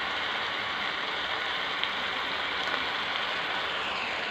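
Green papaya and pork belly stir-fry sizzling steadily in a pan: an even frying hiss.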